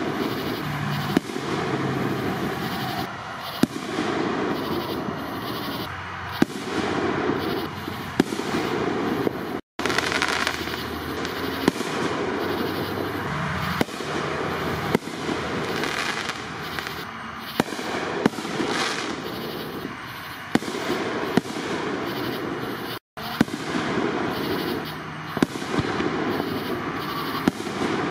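Aerial fireworks bursting overhead: a sharp bang every second or two over a steady crackle. The sound drops out for an instant twice.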